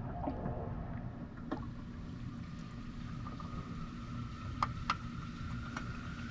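Steady low rumble of pond water, with a few faint short clicks and a faint high tone in the second half.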